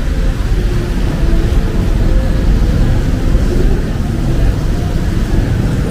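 Street traffic: vehicle engines running close by, a steady low rumble with no single sharp event.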